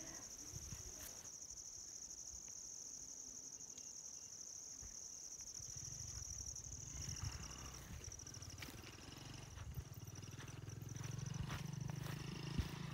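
Field insects chirring: a steady, high-pitched trill. About halfway through, a low hum joins it.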